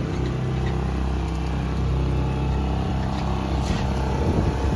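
Boat motor running steadily, with a constant low drone and a wash of water and wind noise.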